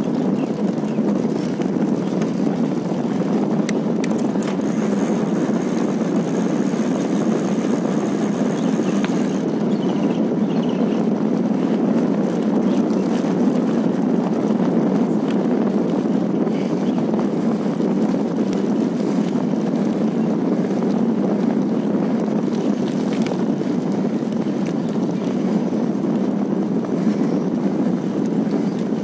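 Steady rushing noise of travel along a road, wind and vehicle noise on the microphone, with no clear engine note.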